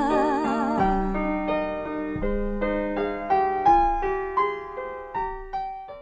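Background music: slow, soft solo piano, single notes struck one after another and dying away, thinning out toward the end. A held wavering tone fades out in the first second.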